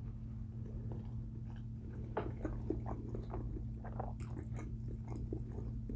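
Close-miked chewing of a bite of chicken and olive pizza, with short crunches and clicks from about two seconds in over a low steady hum.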